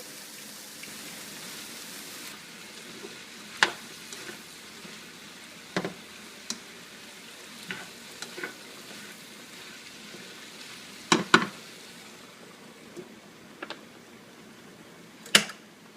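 Food frying and sizzling steadily in a pan, with a few sharp clicks and knocks of a utensil against the cookware.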